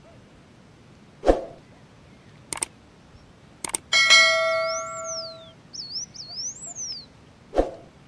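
Subscribe-button animation sound effects: a thud, two quick double mouse clicks, then a notification bell ding that rings out for about a second and a half, and a closing thud near the end. High whistled notes rise and fall over the ringing and just after it.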